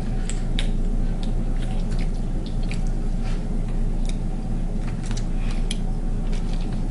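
Wet eating sounds from a sauce-covered seafood boil: irregular squishy clicks and crackles of shellfish being pulled apart and chewed, over a steady low hum.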